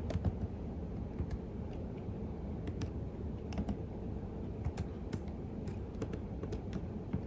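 Typing on a computer keyboard: irregular, unhurried key clicks, a few a second, over a steady low background hum.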